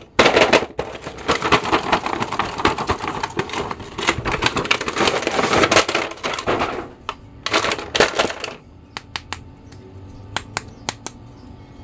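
Thin clear plastic packaging crinkling and crackling as action figures are pulled from their box and tray, with many small clicks. For the last few seconds there are only separate clicks and taps of plastic figures being handled.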